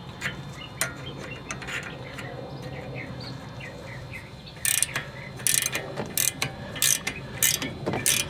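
A ratchet wrench clicking in short back-and-forth strokes, starting about halfway through and running at roughly two strokes a second, turning a 19 mm bolt on a tie rod separator to press out a car's outer tie rod end.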